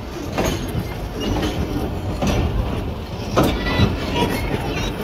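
Passenger train rumbling steadily, with several sharp metallic clanks. Faint voices in the background.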